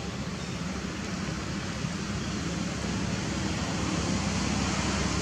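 Steady rushing background noise with a low rumble, slowly growing louder, with no distinct calls or knocks.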